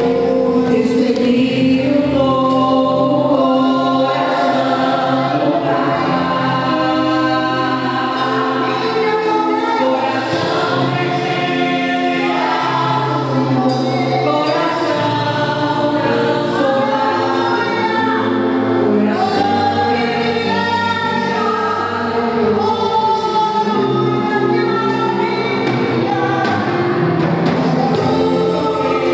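Church choir and worship ensemble performing a gospel song, voices singing together over instrumental accompaniment.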